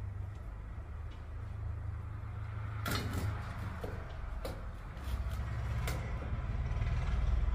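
A steady low rumble that swells from about five seconds in, under several sharp clicks and clinks of a metal utensil against a steel bowl as grilled chicken is pulled apart, the loudest about three seconds in.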